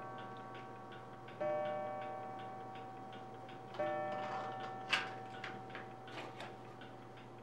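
A clock ticking steadily and chiming: two bell-like strikes that ring out and fade, about a second and a half in and about four seconds in. Around the middle a sharp click and a few small knocks from plastic pill bottles being opened and set back in a wooden box.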